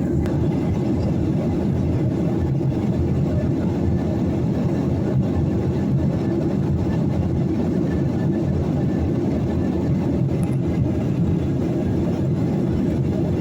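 Airliner cabin noise in flight: the steady low rumble of the engines and airflow heard from inside the passenger cabin.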